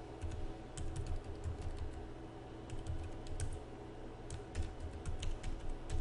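Typing on a computer keyboard: a run of irregular key clicks, each with a soft low thud, with short pauses between bursts.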